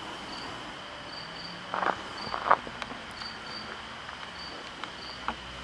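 Insects chirping steadily in a high, repeating pattern, with two footsteps on the leaf-littered forest floor about two seconds in.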